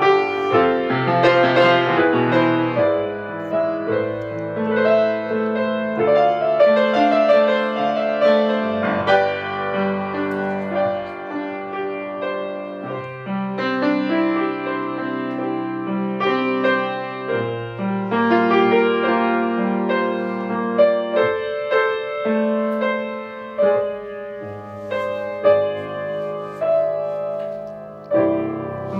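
Grand piano played solo: continuous chords and a melody over a held bass line, the notes ringing on as they change every second or two.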